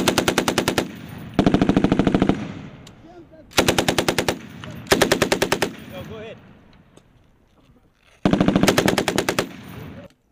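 Belt-fed machine guns firing in short bursts: five bursts of about a second each, every one a rapid string of shots that trails off in an echo, with a pause of a second or more between them.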